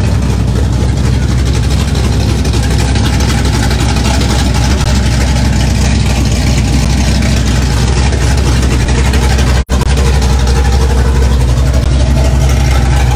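Car engines idling with a steady low rumble over a haze of outdoor crowd noise. The sound cuts out for an instant near ten seconds in.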